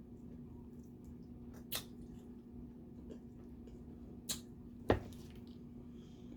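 Snow crab shell being cracked and picked apart: three short sharp cracks, one about a second and a half in and two close together later on, the last the loudest, over a faint steady hum.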